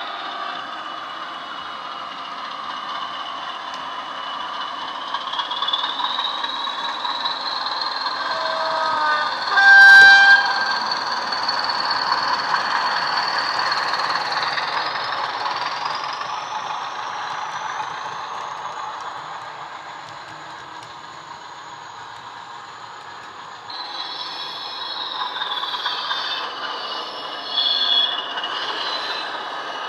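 Sound decoders in Bachmann OO gauge Class 20 diesel models, playing Coastal DCC's Class 20 sound file through small onboard speakers. The engine runs with a high turbocharger whistle that rises twice as the loco powers up and drops away near the end. A horn sounds loudly about ten seconds in.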